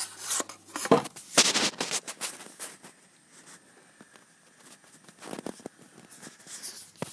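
Handling noise from a handheld camera being moved: irregular rubbing, scraping and clicks, loudest in the first two seconds, with quieter scattered rubs after.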